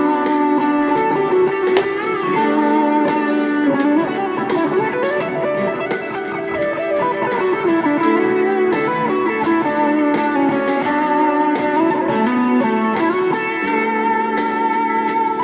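Electric guitar through a Boss SD-1 Super OverDrive pedal, playing an improvised lead line in D major with sustained overdriven notes and several bends and slides.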